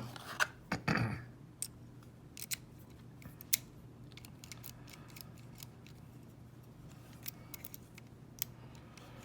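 Lock picks working the pins of a Zeni 850 pin-tumbler cabinet lock: sparse, sharp metallic clicks at irregular intervals, with a louder burst of handling noise in the first second.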